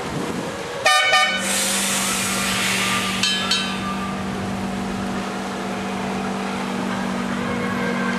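Illuminated tram's horn tooting briefly about a second in and again about three seconds in, with a loud hiss between the toots. A steady low hum sets in after the first toot.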